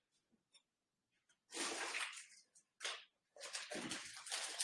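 Rustling and handling noises from a plastic bag of green buckwheat being picked up and carried: a hiss-like rustle about a second and a half in, a short one near three seconds, then scattered rustling toward the end.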